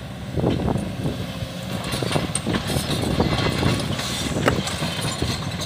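Kobelco hydraulic excavator's diesel engine running steadily while the machine works, with scattered irregular knocks and clatter throughout.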